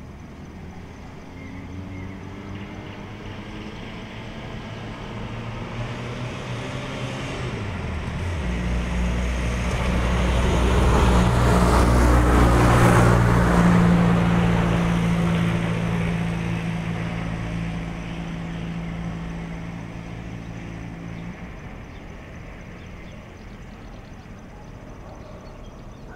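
A motor vehicle passing: its engine hum and tyre noise build up slowly, are loudest about halfway through, then fade away.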